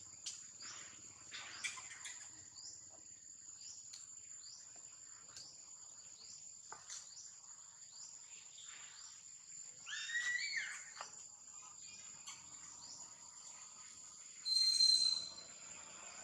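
Insects calling: a steady high buzz with a chirp repeating about one and a half times a second. A short rising animal call comes about ten seconds in, and a louder, shrill high-pitched call near the end.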